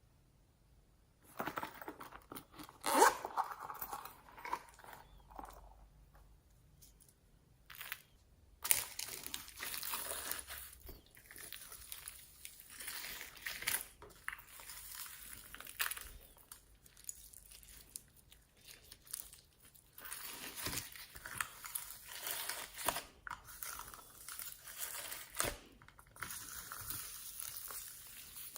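Hands squishing and stretching glossy slime mixed with floam beads, giving irregular crackling, popping and squelching that starts about a second in.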